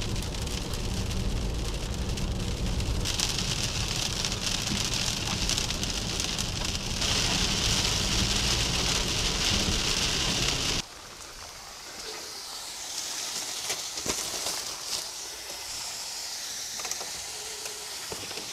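Heavy rain hitting a moving car's windshield and roof over low road rumble, the rain getting louder about three seconds in. Near eleven seconds it cuts abruptly to quieter rain falling on wet pavement outside, with a few small knocks.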